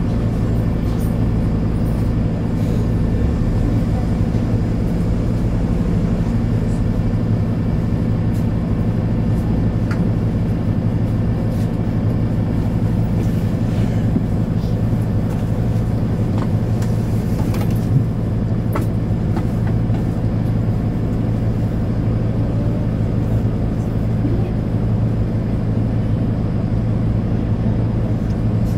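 Mercedes-Benz Citaro C2 hybrid city bus standing at a stop, its diesel engine idling with a steady low drone, heard from inside the passenger compartment. A few faint clicks sound now and then.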